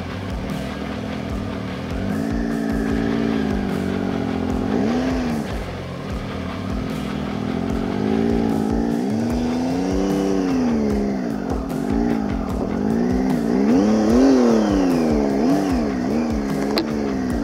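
Motorcycle engine revved up and down over and over, its pitch rising and falling in a string of throttle surges, strongest over the second half.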